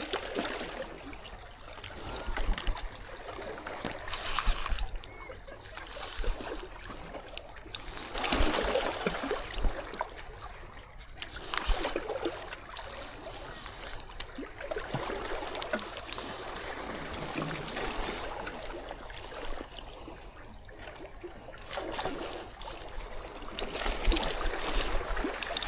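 Water sloshing and splashing in waves, the wash swelling and fading every few seconds, with wind buffeting the microphone.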